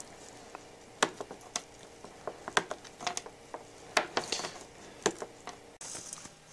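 Hardened spruce pitch gum being snapped by hand into small pieces: an irregular run of sharp cracks and clicks as bits break off the brittle slab.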